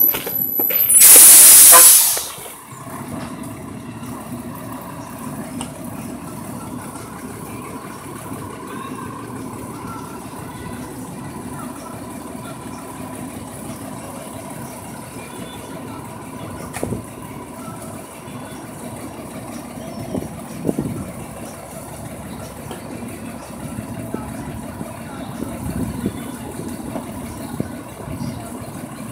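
Natural-gas side-loader garbage truck: a loud burst of air-brake hiss about a second in, then the engine idling steadily.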